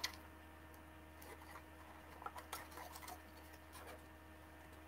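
Faint crackle and rustle of adhesive tape and paper as glow-in-the-dark tape is pressed into the rim of a paper lantern by hand: a small click at the start, then a cluster of soft crackles a little past the middle, over a faint steady hum.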